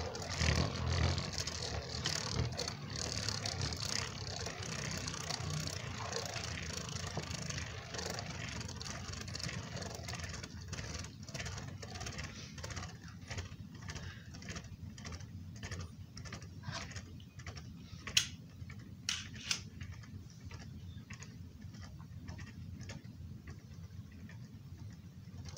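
Super Hyperion Beyblade spinning top whirring and rattling on the plastic floor of a Beyblade stadium, slowly fading as it loses spin in a stamina run. A few sharp clicks come about three-quarters of the way through.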